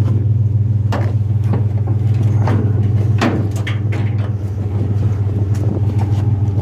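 A vehicle engine idling with a steady low hum, with scattered knocks and scrapes of a metal washing machine being handled.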